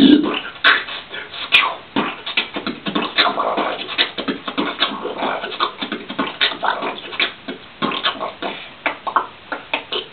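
A man beatboxing: a rapid, irregular run of sharp percussive mouth sounds mixed with vocal noises.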